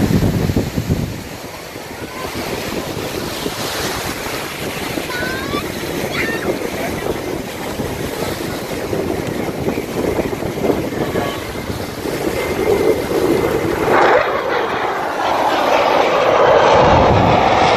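Surf breaking and wind buffeting the microphone. In the last few seconds, the engine noise of four F-16 fighter jets flying in formation grows steadily louder as they approach.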